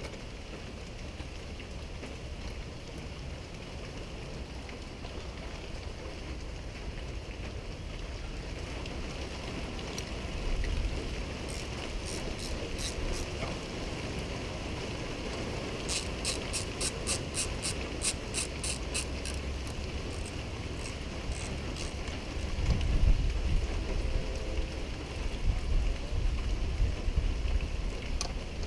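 Hand socket ratchet clicking in two short runs, about twelve and sixteen seconds in, at a few clicks a second, as fasteners are worked on the outboard. Under it is a steady hiss, with low knocks of handling toward the end.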